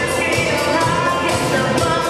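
Recorded dance music: a song with a singing voice over a steady beat.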